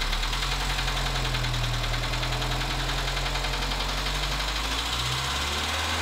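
Dacia Sandero's 1.2 litre D4F petrol engine running steadily, its note changing about five seconds in.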